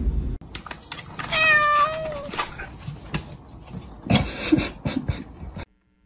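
A domestic cat gives one drawn-out meow lasting about a second, among scattered light taps and scuffs.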